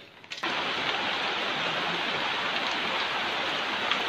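Steady rush of a swollen, muddy creek in flood, starting abruptly about half a second in.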